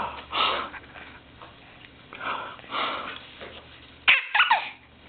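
A baby's vocal noises: a few short breathy grunts and coos, then a loud, high squeal with a wavering pitch about four seconds in.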